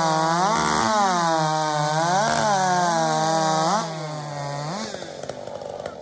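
Two-stroke racing chainsaw of the 81 cc-and-under class running at full throttle through a cut, its pitch dipping and recovering a few times under load. About four seconds in it gets quieter, and the pitch then falls off as the saw winds down.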